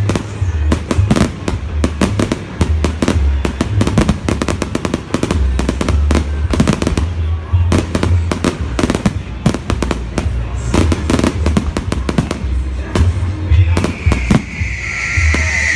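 Fireworks exploding in a rapid, dense barrage of bangs and crackles, thinning out after about twelve seconds. Near the end a high, wavering whistle comes in.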